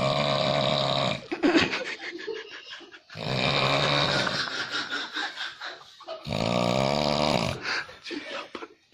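A sleeping person snoring heavily: three long snores about three seconds apart, with quieter breathing between them. The snoring is really bad.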